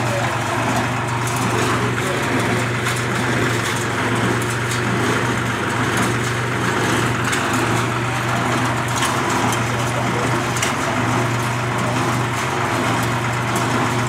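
Tractor engine idling steadily, with a low, even hum and no baler knocking, while voices talk faintly alongside.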